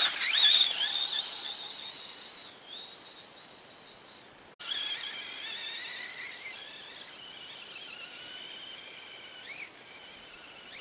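High-pitched whine of an Axial EXO Terra RC buggy's electric motor and gear drive, rising and falling with the throttle. It is loudest at the start and fades, breaks off abruptly a little under halfway through, then comes back steadier and quieter while the buggy climbs.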